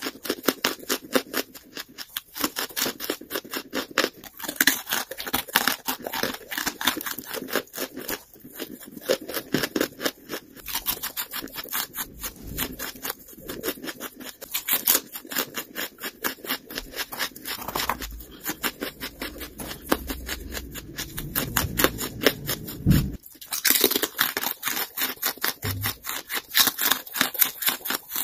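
Lump charcoal being bitten and chewed: dense, rapid, dry crunching with many sharp cracks, breaking off briefly near the end.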